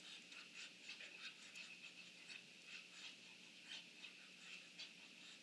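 Faint, irregular short soft calls from ducks and their duckling, a few each second, over a steady high-pitched drone.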